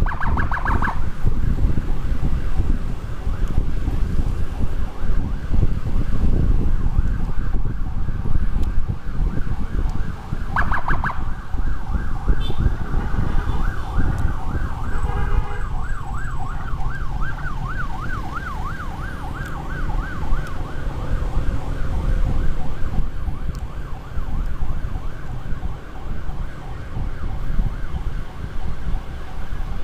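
Electronic emergency siren on a fast up-and-down warble, about three cycles a second, clearest around the middle, over heavy low wind rumble on the microphone of a moving motorcycle.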